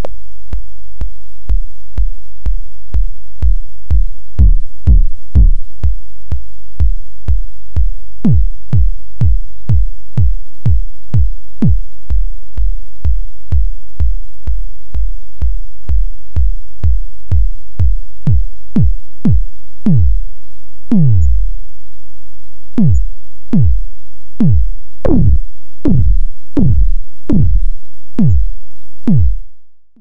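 Electronic drum hits from a Korg Monotron analog synthesizer: a run of short beats, each a quick downward pitch sweep, roughly two a second and sparser in the second half, over a steady low drone. The pattern stops abruptly near the end.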